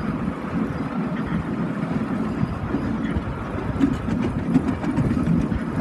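Miniature railway train running along the track: a steady rumble of the cars' wheels on the rails, with a few clicks in the second half.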